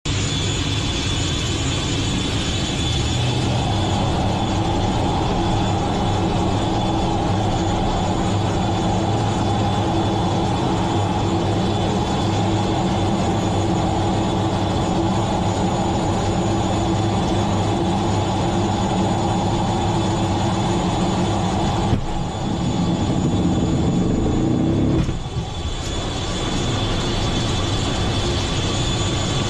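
Fighter jet engines running at high power with a steady high whine, heard from inside the closed cockpit. About 22 seconds in a sharp jolt starts a louder surge of a few seconds that cuts off suddenly, typical of a carrier catapult launch, after which the engine noise runs on steadily in flight.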